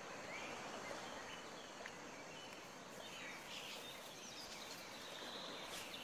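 Faint rainforest ambience: a steady hiss with a few short, scattered bird chirps.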